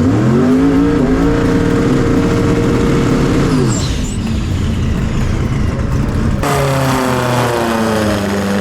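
A drag race car's engine at full throttle: the pitch climbs for about a second and holds high, then drops away about three and a half seconds in as the throttle comes off. After an abrupt cut, another engine sound falls in pitch.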